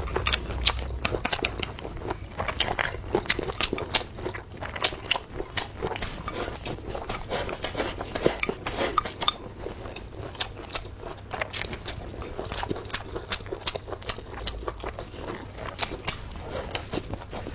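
Close-miked eating sounds: biting and chewing of food, with many quick clicks of utensils against a dish.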